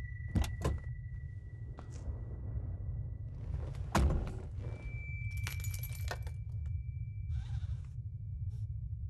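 A car door being opened with two sharp latch clicks, a man settling into the driver's seat, and a solid thunk about four seconds in, followed by keys jangling and rattling at the ignition. A steady low hum and a faint high steady tone lie underneath.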